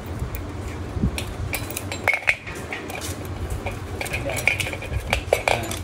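Yamaha R15 M clutch plates and small metal parts clinking and scraping against each other as they are handled by hand in the clutch basket, a run of irregular light metallic clicks.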